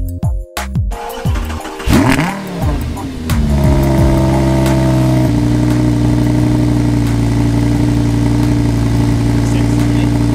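Audi R8's 5.2-litre V10 starting: the engine fires with a quick rev flare that rises and falls, then settles into a steady fast idle. The idle drops slightly about five seconds in.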